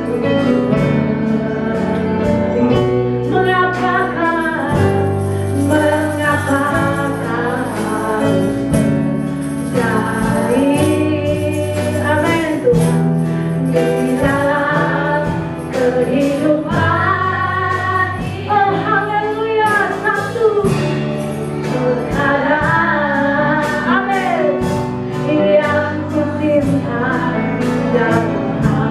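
Live worship band and female singers performing an Indonesian praise song: lead and backing voices over keyboard, bass, guitars and drums, with hand tambourines jingling along.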